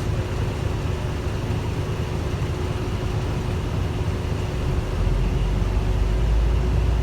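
Hino Blue Ribbon city bus's diesel engine running steadily, with a low rumble that grows louder about five seconds in.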